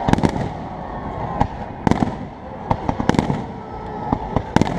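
Fireworks display: an irregular run of sharp bangs, well over a dozen, some coming in quick clusters, over continuous background noise.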